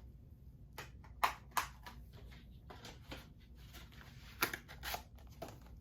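A plastic 4K Blu-ray case being handled: a few sharp clicks and taps, two louder ones a little past a second in and two more past four seconds in, with lighter handling sounds between.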